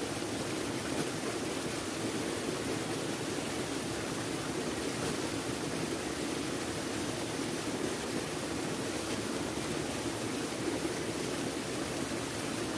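Steady, unbroken rushing noise, even throughout, with no distinct events.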